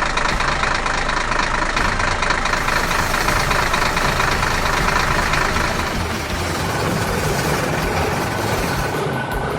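Construction-machine engine sound effect running steadily with a dense rattling rumble, easing slightly about six seconds in.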